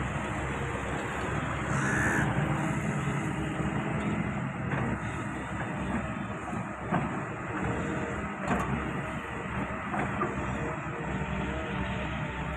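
Hitachi ZX hydraulic excavator's diesel engine running steadily under digging load, with a brief higher whine about two seconds in and a couple of sharp knocks later on.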